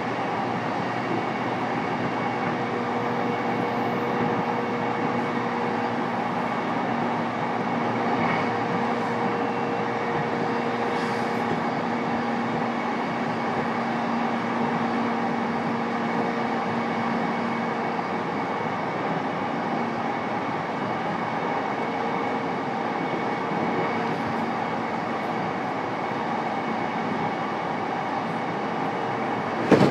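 Running noise heard inside a JR East E233-3000 series EMU motor car (MoHa E233) moving at a steady pace between stations. Wheels and rail keep up a steady rumble under a faint steady hum, and there is one sharp knock near the end.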